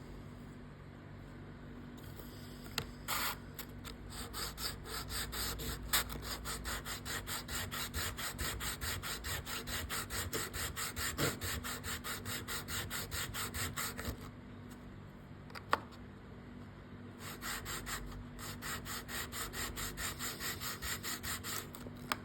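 An unbleached bone guitar nut being sanded back and forth on sandpaper in a steady rasping rhythm of about three strokes a second. There are two long runs with a short pause between them, and a few sharp clicks of the nut or tool being set down.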